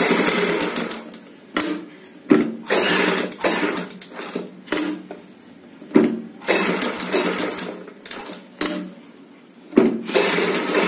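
Electric domestic straight-stitch sewing machine running in short spurts that start and stop several times, as it stitches a fabric strip along piping.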